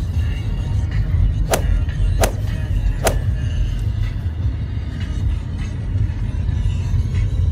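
Road and engine noise inside a moving car's cabin, a steady low rumble, with three sharp clicks or knocks under a second apart in the first half.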